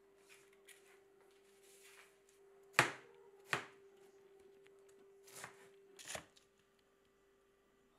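Chef's knife chopping purple cabbage on a cutting board: four sharp knife strikes against the board, two close together about three seconds in and two more about two seconds later, over a faint steady hum.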